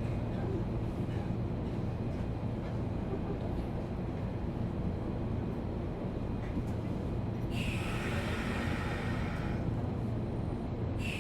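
Interior sound of a Sotetsu New 7000 series electric train car with Hitachi GTO inverter equipment: a steady low hum and rumble. A higher tone-like sound comes in about two-thirds of the way through, stops, and starts again near the end.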